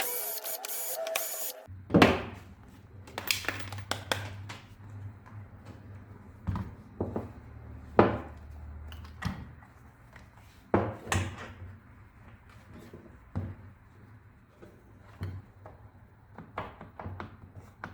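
Clicks and knocks of a Fiolent MF4-1100E router's parts and tools being handled and set down during disassembly, scattered irregularly over a low steady hum. A short mechanical whirr during the first second and a half cuts off abruptly.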